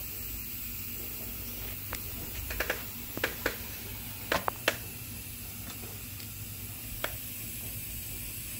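About nine sharp metallic clicks and knocks, mostly bunched in the first half, from hand tools and mower-deck parts being handled, over a steady hiss.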